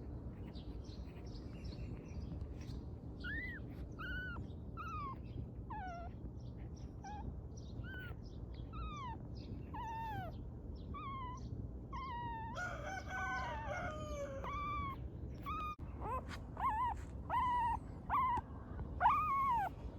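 Newborn puppies whining: short, high cries that fall in pitch, starting a few seconds in and coming louder and closer together near the end, over a steady low background hum.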